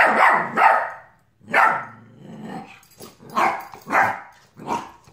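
Bernese mountain dog puppy barking, a string of about seven short barks with brief pauses between them.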